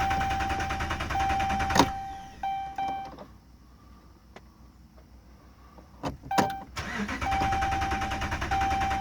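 2011 Dodge Ram's Hemi V8 cranking on its starter without catching, stopping after about three seconds; after a pause come a few clicks, and the cranking starts again. A repeating high electronic beep sounds over the cranking. The owner puts the no-start down to no fuel.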